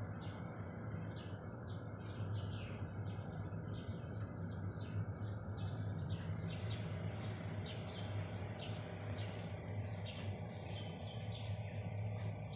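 Birds chirping in many short, quick calls, over a steady background hiss and low hum.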